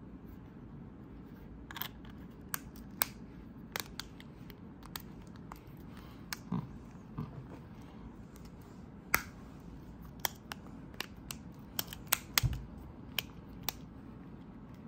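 Irregular sharp plastic clicks and ticks from a Honda key fob's plastic case as its halves are handled and pressed together, with a few short low knocks among them.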